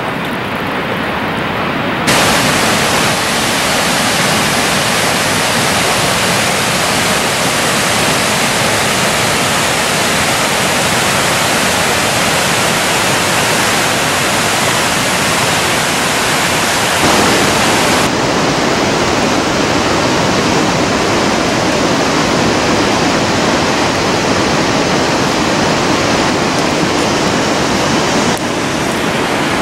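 Waterfall rushing, a loud steady sound of falling water plunging down a rock face. The sound changes abruptly about two seconds in, again past the middle, and near the end.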